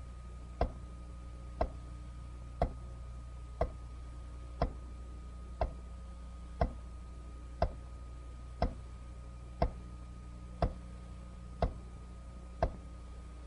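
Even clock-like ticking, one sharp tick about every second, over a low steady hum.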